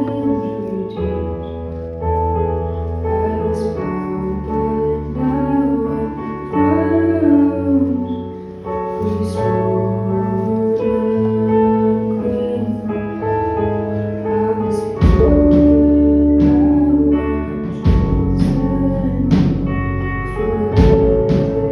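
A live band playing a song: sustained keyboard chords over a bass line with a singing voice. About fifteen seconds in the drums come in and the music gets louder.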